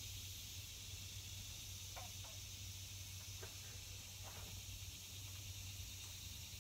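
Quiet outdoor background: a steady high hiss over a low hum, with a few faint short ticks about two to four and a half seconds in.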